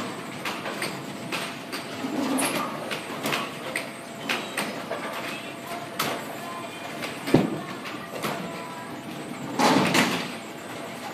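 Bowling alley noise: bowling balls rolling and rumbling on the lanes, with scattered knocks and clacks. A sharp knock comes about seven seconds in, and a louder, longer clatter comes near ten seconds, as the ball is released.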